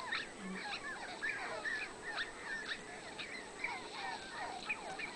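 Many short bird calls overlapping, several a second, like a flock chattering.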